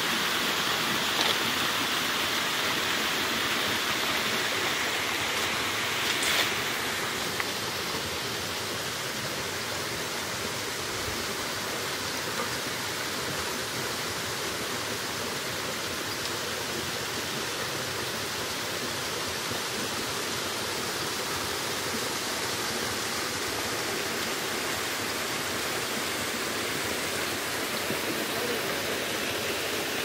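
Waterfall and its plunge pool's water rushing in a steady, even hiss, a little louder for the first six seconds. A single brief tap about six seconds in.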